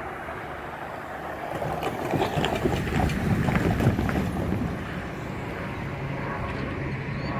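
A pickup truck drives over a railroad grade crossing close by: tyre and engine noise swells and fades, with a few sharp knocks as the wheels cross the rails and panels. Wind runs on the microphone throughout.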